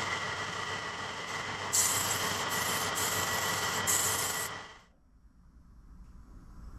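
A power tool running with a steady whine under a rough rubbing noise, getting louder in stretches, then winding down and stopping about four and a half seconds in.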